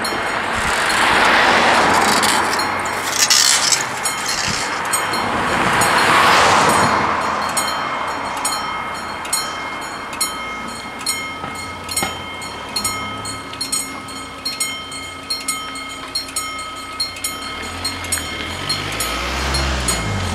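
Level-crossing warning bells ringing in a steady, rapid rhythm while the crossing closes for an approaching train. Two vehicles pass through, about a second in and about six seconds in. Near the end a low motor hum rises as the barrier arms come down.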